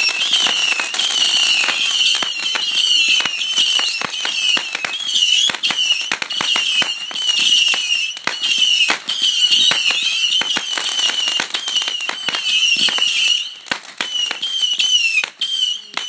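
Ground fireworks going off: a dense run of crackling pops and bangs that thins out about thirteen and a half seconds in. Under it runs a high warbling chirp that repeats about once a second.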